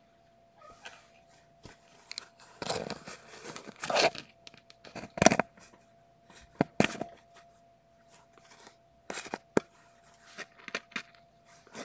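Scratchy rustling and sharp knocks from a mother cat's fur and her kittens brushing and bumping against the nest-box camera, in irregular bursts with the loudest knock near the middle. A faint steady hum runs underneath.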